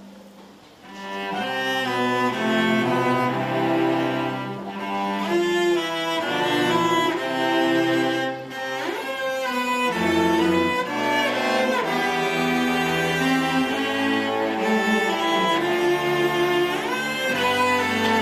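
An elementary school string orchestra plays: cellos, violins and double basses together. The music dips briefly at the start and comes back in about a second later.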